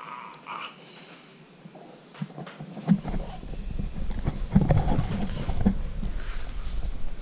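A Cavalier King Charles Spaniel scrambling about on a bed, with irregular thumps and rustling and a low rumble from the handheld camera being jostled, starting about three seconds in.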